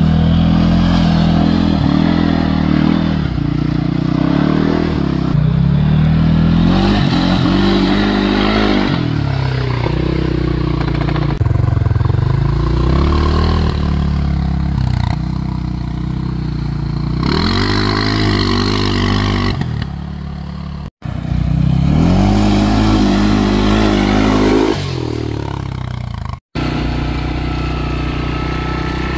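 CFMoto CForce 600 ATV's single-cylinder engine revving and pulling hard under acceleration, its pitch rising and falling again and again through the CVT clutch. The sound breaks off abruptly between short clips and drops out briefly twice near the end.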